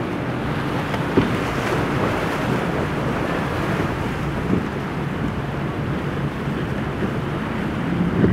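A center-console motorboat's engines run at speed through rough inlet water, with a steady rush of spray and waves, wind buffeting the microphone, and a few short slaps of the hull on the waves. A heavy splash comes near the end as a wave breaks over the boat.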